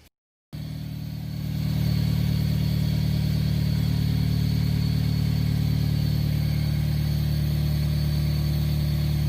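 A 1995 Honda Civic's four-cylinder engine, fitted with a cold air intake, idling steadily. It comes in about half a second in, rises over the next second or so, then holds level.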